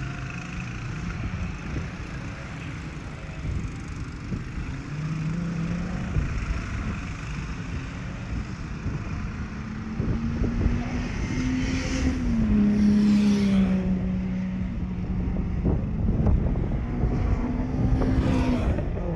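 Race car engines being driven hard around a circuit, heard from trackside. The engine note climbs for a couple of seconds and drops sharply about twelve seconds in, as on an upshift or lift-off, then climbs again near the end.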